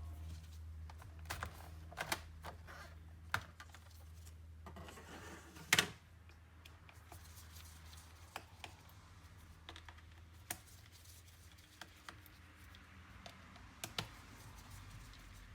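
Scattered light clicks and taps of small laptop parts being handled during disassembly, the loudest a short clatter about six seconds in, over a faint low hum.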